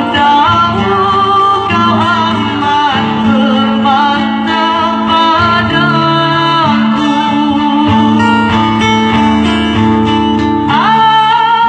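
A woman singing a slow melody through a microphone with long, wavering held notes, accompanied by an acoustic guitar. Near the end her voice rises to a higher note.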